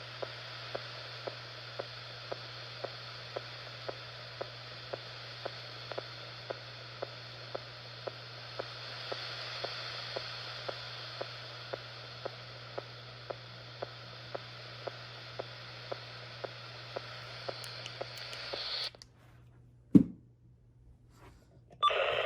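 Weather radio receiver on NOAA Weather Radio station WWH24 giving only dead air: a steady hiss and hum with a faint tick about twice a second, the sign of the transmitter going off the air. The hiss cuts off suddenly near the end, followed by a single sharp thump.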